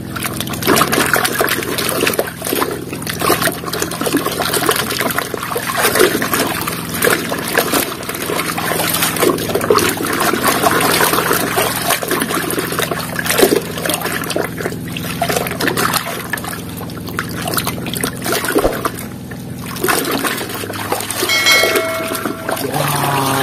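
Water sloshing and splashing as a hand scrubs a plastic toy in a basin of muddy, soapy water, with constant swishing that eases off briefly a little before the end. Near the end a short electronic chime sounds.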